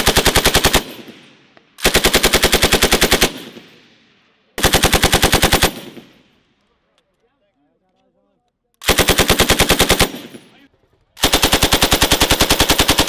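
M240 belt-fed 7.62 mm machine gun firing short bursts of about ten rounds a second, each burst one to two seconds long and trailing off in an echo. Five bursts: the first is already going at the start, there is a pause of about three seconds in the middle, and the last is still firing at the end.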